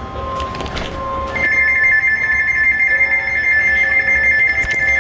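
Steady electronic alert tones from an Emergency Alert System broadcast: a single tone for about the first second, then two higher tones sounding together and held steady from about a second and a half in.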